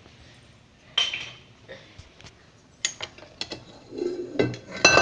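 Metal spoon tapping and clinking against a small bowl as honey is added to cinnamon powder: a few light ticks, then a louder ringing clink near the end.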